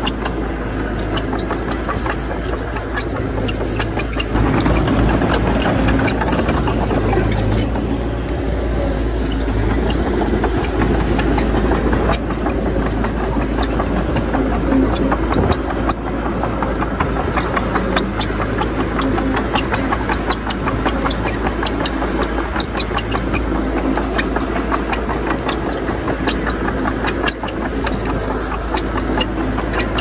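Bulldozer's diesel engine running steadily, with many small clanks and knocks over it.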